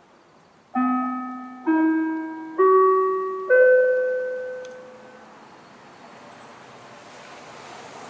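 Four-note rising chime from a municipal disaster-prevention (bōsai musen) outdoor loudspeaker: four ringing tones, each a step higher, about a second apart, each fading slowly and dying away after about five seconds. It is the pre-announcement chime that signals a broadcast is about to follow. Afterwards light rain hisses on the microphone.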